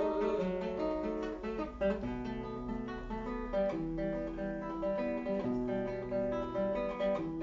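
Acoustic guitar playing an instrumental interlude between sung verses, strummed and picked chords.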